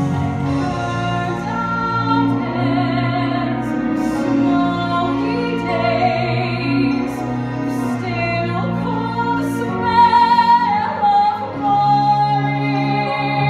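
A woman singing a slow ballad over instrumental backing music, with long held notes and vibrato.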